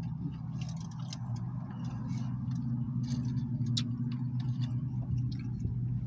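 Steady low hum inside a parked car's cabin, with scattered small clicks and smacks of someone chewing french fries.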